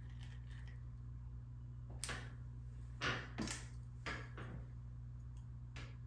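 Painter's brush and hands at work: several short scrapes and rustles, the loudest about three seconds in, over a steady low hum.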